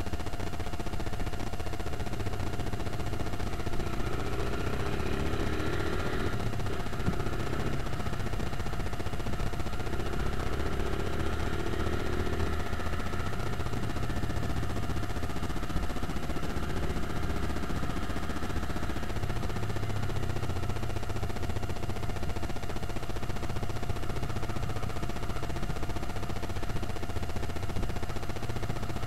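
Motorcycle engine running as the bike rides along, a steady drone whose pitch shifts a couple of times.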